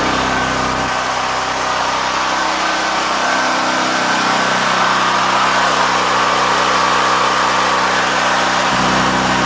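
DuroMax XP10000E portable generator engine running steadily.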